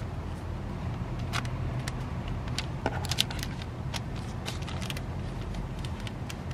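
Paper sticker sheets, envelopes and plastic sleeves being handled on a desk: scattered light rustles, crinkles and taps, busiest around the middle, over a steady low background rumble.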